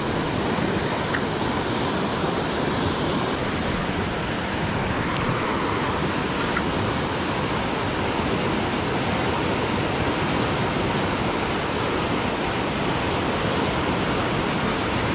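Swollen creek in high, fast current, its water rushing steadily in a dense, even wash of noise loud enough to drown out small sounds. A few faint ticks sit under it.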